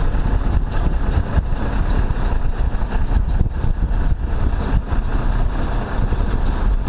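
A vehicle engine idling steadily, a low rumble that carries on without a break.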